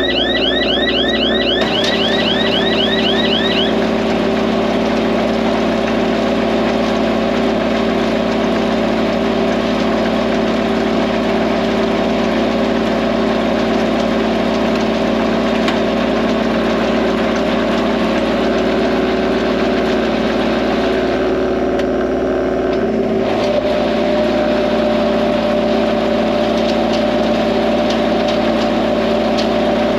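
Diesel tractor engine running steadily under way in the field. A quick series of rising high chirps sounds over it for the first few seconds, and the engine's tone shifts slightly a little past the middle.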